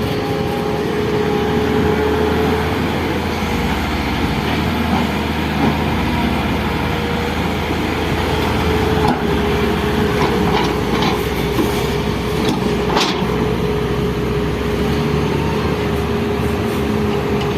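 Excavator's diesel engine running steadily under work, with a steady whine over the rumble and a few sharp knocks.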